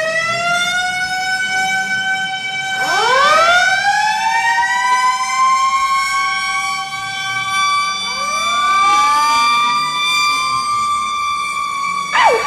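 Ice hockey goal horn blaring in overlapping siren-like blasts, each sweeping up in pitch and then holding a long steady tone; new blasts come in about three seconds and about eight seconds in. Near the end a wavering, warbling sound starts over it.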